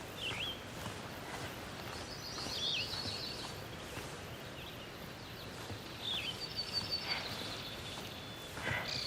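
Birds calling over a steady outdoor background hiss: short swooping whistled notes and rapid chattering trills, recurring every few seconds.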